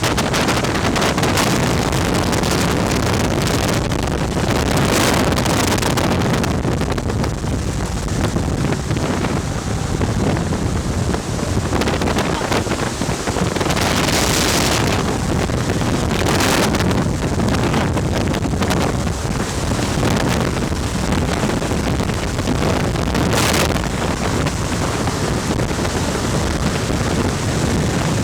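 Loud steady rush of air driven by a VOD-40 axial ventilation fan, buffeting the microphone, with a few brief hissing surges.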